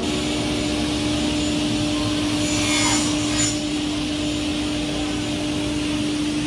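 Sliding table panel saw running with a steady hum and hiss, with a brief brighter rasp from about two and a half to three and a half seconds in as the board is cut.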